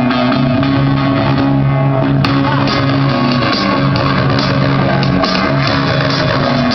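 Loud rock music with electric guitar, bass and drums, played through a stage sound system in a sound test.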